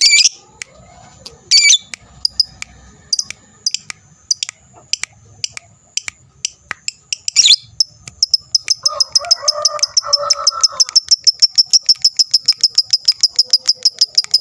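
Lovebird giving loud, scattered shrill chirps, then from about eight seconds in breaking into its long, fast, even chattering trill (ngekek) of about six notes a second.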